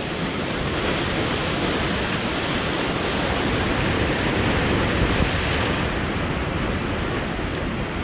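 Rough sea breaking on a sandy beach: a steady rush of heavy surf, with wind buffeting the microphone.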